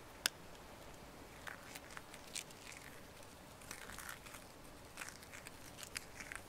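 Soft orange-red ceramic filter media crushed between fingers: a sharp snap a fraction of a second in as it breaks, then faint gritty crackling as it is rubbed to dust. The media is exceptionally soft, the kind that crumbles to dust in a filter.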